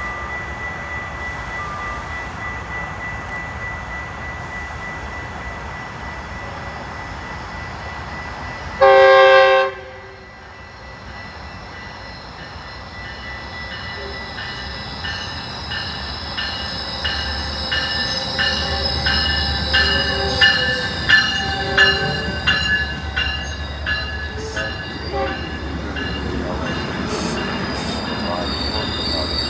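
A train horn gives one short, loud blast about nine seconds in. A train then passes, growing louder, with high-pitched wheel squeal and regular clicking of wheels over rail joints.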